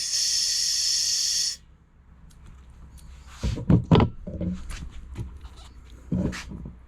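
Air hissing out of a 265/75R16 tyre's valve as it is let down toward 16 psi, cutting off about a second and a half in. A few knocks and clunks follow, the loudest a couple of seconds later.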